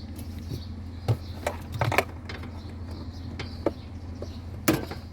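A few sharp plastic clicks and knocks as a refrigerator defrost sensor is worked loose from its clip on the evaporator, the loudest near the end, over a steady low hum.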